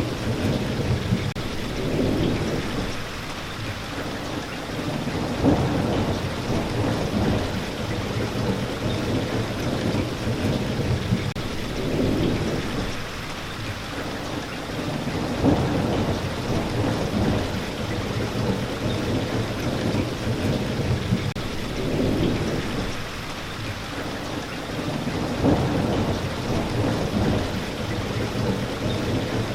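Steady rain falling, with low rolling thunder that swells and fades several times, about every ten seconds.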